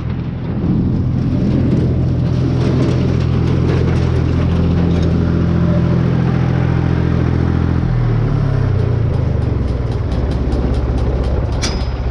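Tractor engine running steadily to drive a square baler; about eight seconds in its pitch drops and settles at a lower speed. A quick run of light ticks comes near the end.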